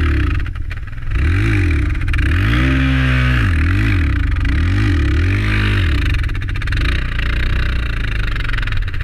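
Dual-sport motorcycle engine revved up and down in about half a dozen quick bursts, then held steadier near the end, as the bike is powered out of a deep mud rut.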